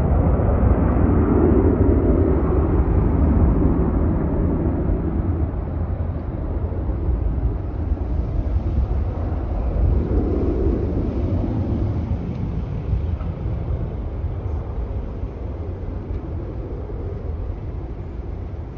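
Jet airliner engine rumble, a steady low roar that slowly fades as the aircraft draws away.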